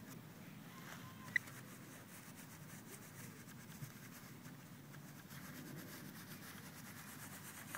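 Pinpointer probe brushing through grass in a faint, steady rubbing, as the dug spot is checked for a further target. A single short, high chirp sounds about a second and a half in.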